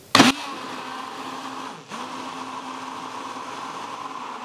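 Immersion blender running in a tall narrow cup, whipping egg, oil, vinegar and lemon into mayonnaise: a steady whirring hum after a short loud noise at the very start. It drops out for a moment about two seconds in and picks straight back up.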